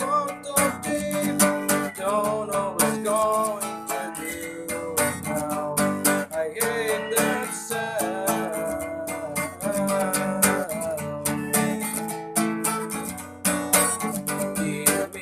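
Acoustic guitar strummed, with a voice singing a melody over it.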